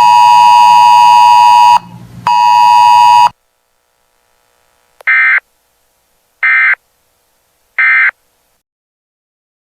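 Weather radio alert signal: two loud, steady buzzer tones, about two seconds and then one second long, followed a couple of seconds later by three short, identical data bursts, the Emergency Alert System end-of-message code that closes the broadcast.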